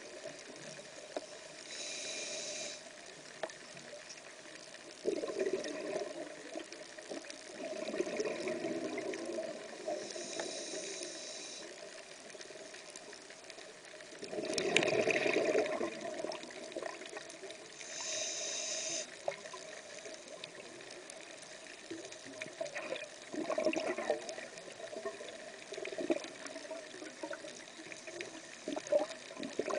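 Muffled underwater ambience picked up by a submerged camera, with a scuba regulator's breathing: a short high hiss of inhalation about every eight seconds and bursts of exhaled bubbles between them.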